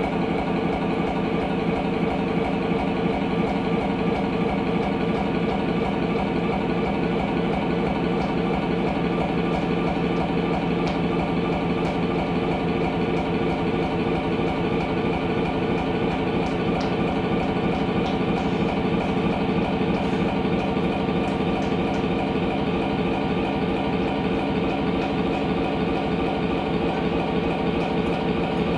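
A loud, steady engine-like drone with a dense stack of held tones and a fast, even pulse, unchanging throughout.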